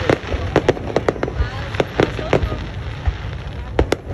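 Aerial fireworks bursting: many sharp bangs and crackles in quick, irregular succession over a constant low rumble.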